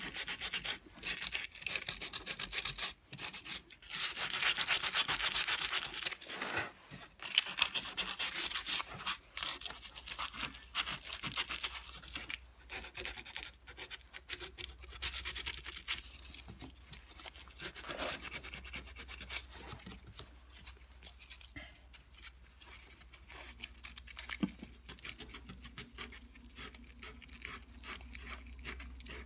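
Small hand carving tool scraping and rubbing over the carved cherub relief in quick, short finishing strokes, heavy and dense in the first half, lighter and sparser after. A low steady hum comes in about halfway.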